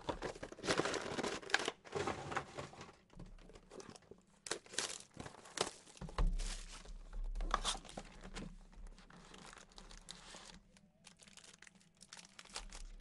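Crinkling and tearing of foil trading-card packs and their box wrapping as they are handled and stacked. The rustling comes and goes irregularly and is heaviest in the first two seconds and again around five seconds in.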